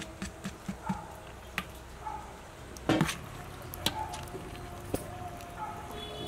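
A steel spoon knocking and scraping against the rim of a large steel vessel while scooping thick idli batter: a few scattered sharp clicks, the loudest about three seconds in.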